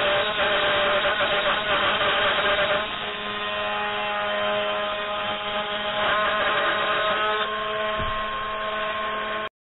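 3018 Pro desktop CNC router cutting plywood with its spindle motor and end mill: a steady mechanical whine made of several held tones over the hiss of the cut. It drops a little about three seconds in, gives a brief low knock near the end, and cuts off abruptly just before the end.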